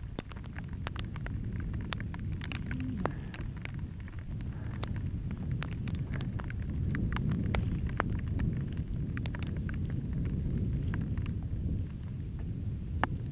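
Mountain bike being ridden along a rough trail: a steady low rumble with many sharp clicks and rattles scattered through it, growing louder after the first couple of seconds.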